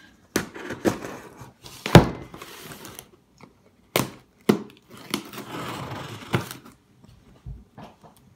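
Cardboard shipping box handled on a wooden table, with a loud knock about two seconds in as it comes down. Then scissors scrape and slice along the heavily taped seam of the box, with several sharp knocks and stretches of crinkly scraping.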